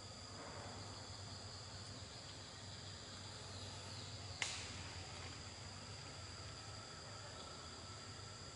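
Steady high-pitched insect chorus in outdoor ambience, with a single sharp click about halfway through.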